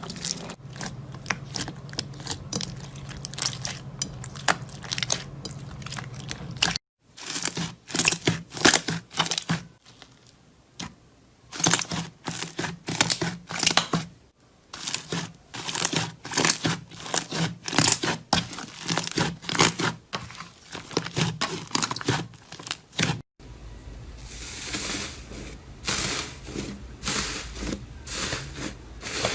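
Slime being pressed, poked and stretched by hand, giving rapid sticky crackles and pops. It comes in several short takes that cut off abruptly and restart, a third of the way in, halfway and about four-fifths in.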